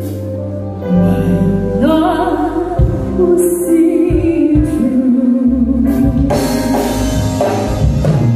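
Woman singing a ballad live into a microphone, backed by a band with drums, electric guitar and keyboards.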